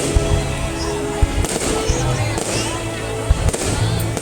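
Fireworks going off in several sharp bangs over steady music.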